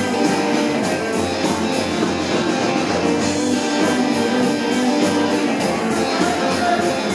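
Live rock band playing an instrumental passage: electric guitars over bass, keyboard and drums keeping a steady beat.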